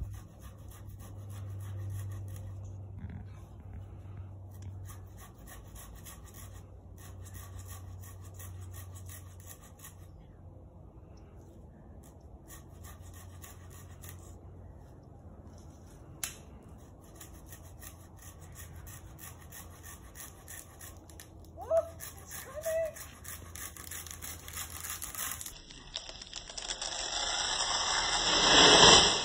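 Handsaw cutting into a palm trunk in repeated back-and-forth strokes, faint. Near the end a rising rush of swishing fronds builds to a loud crash as the cut palm topples.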